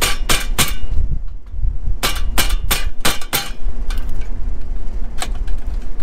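A series of sharp knocks or clacks, about ten in all, irregularly spaced: three close together at the start, a quicker run of about six a couple of seconds in, and a single one near the end, over a steady low rumble.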